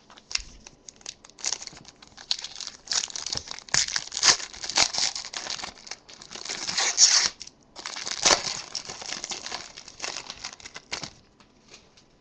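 Foil wrapper of a Panini Select football card pack being torn open and crinkled by hand, a dense crackling with one short pause a little past halfway.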